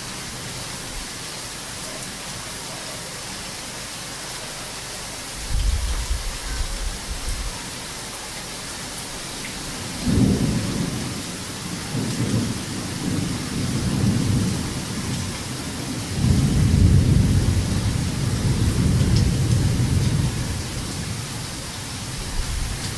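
Heavy rain falling steadily, with thunder rumbling over it: a short low rumble about five seconds in, then longer rumbles from about ten seconds on, loudest a little past the middle.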